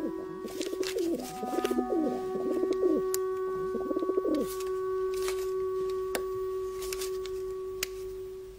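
Pigeon-style cooing: several rolling, wavering coos in the first half, over a long steady low tone.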